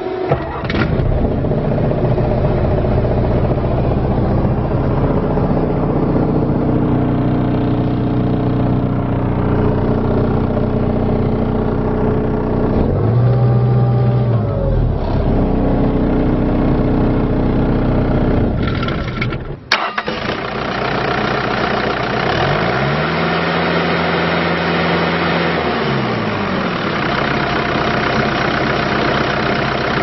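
2011 Bobcat S750 skid steer's diesel engine push-button started, catching within the first second and then running steadily. Twice its speed rises briefly and falls back: once about halfway through and once near the end.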